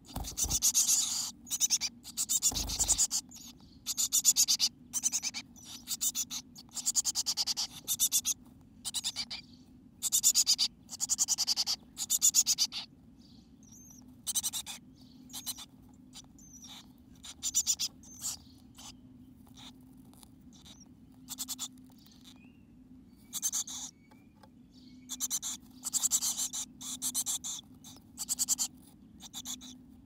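A chickadee scratching and shuffling in its nest material inside a nest box: irregular bursts of dry scratching, each under a second, separated by short pauses, over a faint steady low hum.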